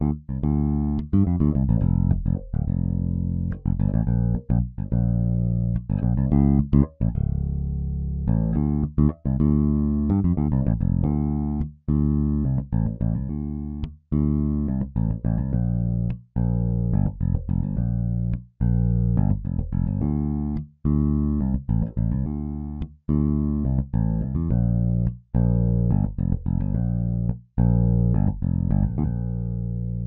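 Sampled electric bass in EZbass (Vintage bass, clean DI) playing contemporary R&B bass-line grooves at 107 BPM, a run of plucked notes that breaks off briefly about once a bar. About eight seconds in it changes to a busier pattern.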